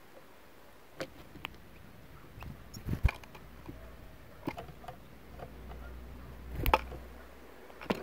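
Great spotted woodpecker pecking at seeds in a coconut-shell feeder: irregular sharp taps and knocks of its beak on the seeds and shell, a second or more apart, the loudest about three seconds in and again near seven seconds. A faint low rumble comes in about halfway through.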